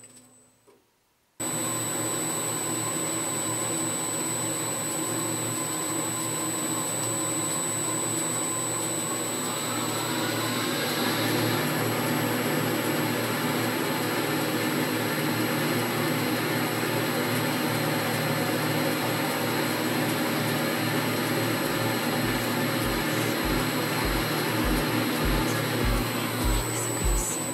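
Boxford AUD lathe headstock running under a variable frequency drive, a steady whirr of gears, belts and spindle. It cuts in suddenly about a second and a half in, and the pitch rises partway through as the spindle speeds up, then holds steady.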